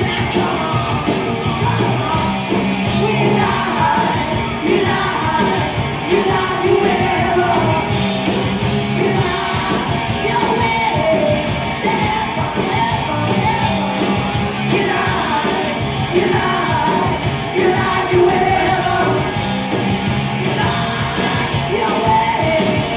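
Hard rock band playing live, with a singer yelling the vocal line over guitars and drums.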